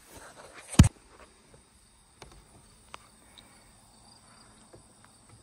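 Insects, crickets by their sound, trilling steadily in high even tones. One sharp, loud knock comes just under a second in, with a few faint clicks after.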